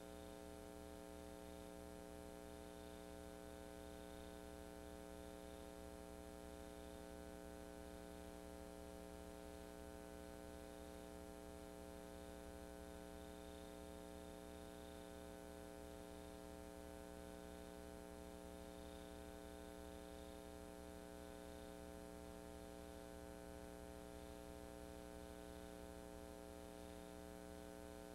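Near silence: only a faint, steady electrical hum with hiss, unchanging throughout.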